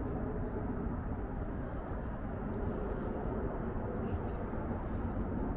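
Steady low rumble of outdoor background noise on an open hilltop, with no distinct events.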